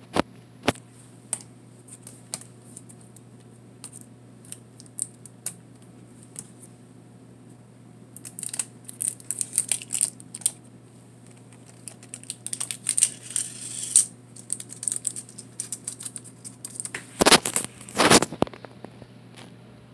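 Olympus Camedia C-4040Z digital camera clicking over and over as its battery dies: it tries to move the lens, cuts out and starts again in an endless loop. A little later comes a crinkling of tape as the taped lens cap is pulled at, and near the end two loud knocks of the camera being handled.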